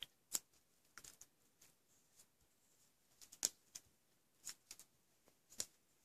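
Duct tape petals being handled and pressed onto a pencil flower topper: faint, irregular crinkles and clicks of the tape.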